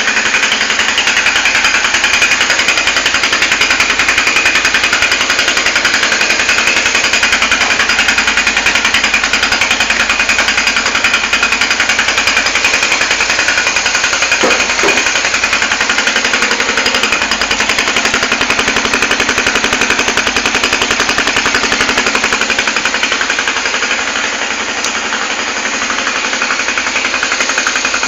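2001 Suzuki GN250's single-cylinder four-stroke engine idling steadily just after starting, a rapid even exhaust beat through a chamfer-cut exhaust pipe. It is a little louder than the stock exhaust.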